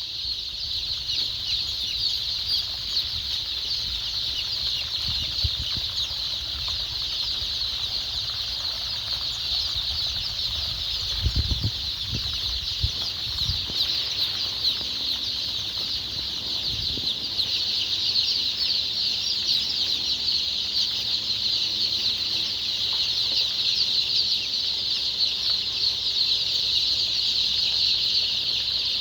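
A crowd of day-old chicks peeping continuously, many high-pitched calls overlapping into a dense chorus. A few low thumps sound about midway.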